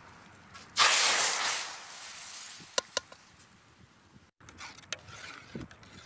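Hot tempering (tadka) with curry leaves poured from a steel pan into a pot of tomato curry, hitting it with a loud sizzle about a second in that fades over the next two seconds. Two sharp metal clinks follow.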